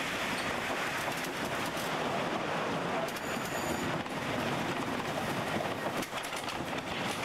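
Wooden roller coaster train rolling on the wooden track into the station, its wheels clattering steadily, with a brief high squeal about three seconds in.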